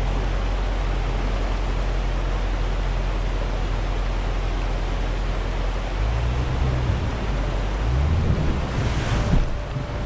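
Steady rush of river water and wind noise over the low hum of an off-road vehicle's engine idling. The engine note shifts about six seconds in, and a brief louder rush comes near the end.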